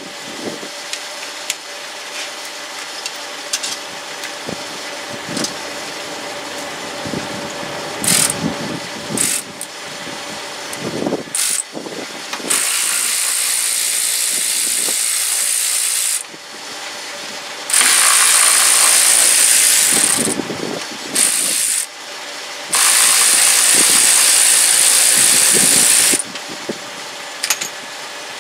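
A power tool runs in four bursts, three of two to three seconds and one short one, with clicks and clanks of tools and parts before them. It is loosening fasteners while the front passenger wheel and its wheel-well liner come off a Dodge Caravan.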